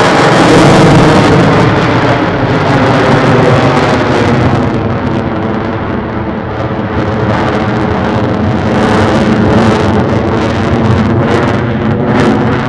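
Lockheed Martin F-22 Raptor's twin Pratt & Whitney F119 turbofans in afterburner, heard as loud, continuous jet noise as the fighter climbs and manoeuvres overhead.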